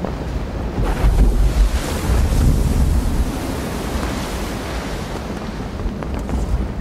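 Sea waves and wind: a steady rushing noise with a low rumble that swells about a second in and eases off after about three seconds.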